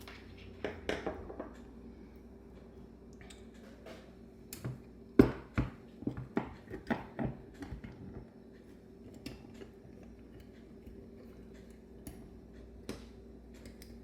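Small metal parts and hand tools clinking and tapping during the teardown of a Bendix Stromberg WWC carburetor. A quick run of clicks and knocks comes about five seconds in, with a few more scattered around it, over a steady low hum.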